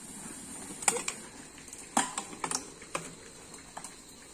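Irregular clatter of mountain bikes: a run of sharp knocks and clicks from wheels, frames and drivetrains, loudest about a second in and again about two seconds in.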